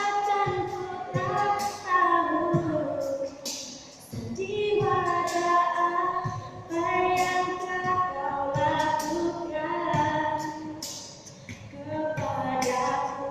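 A woman singing a slow melody with long held notes that slide up and down in pitch.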